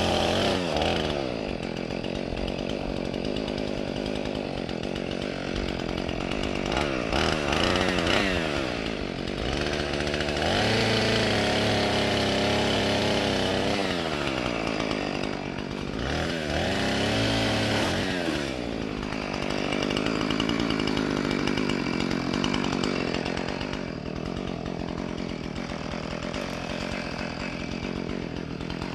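Chainsaw cutting oak, its engine running continuously and its pitch rising and falling several times as the throttle and load change.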